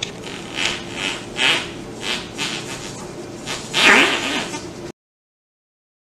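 A long fart made of a string of short bursts, about two a second, with a louder burst about four seconds in. It cuts off suddenly about five seconds in.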